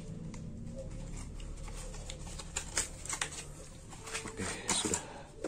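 Handling noise as the grinder kit's plastic parts and packaging are moved: a low steady hum, then from about two and a half seconds in a scatter of sharp clicks and short rustles.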